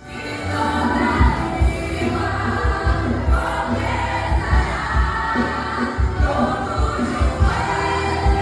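Church vocal group singing a gospel song in several voices over a band accompaniment with a steady low drum beat, fading in at the start.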